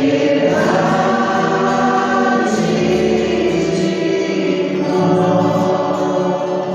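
A choir singing gospel music, several voices holding long sustained notes.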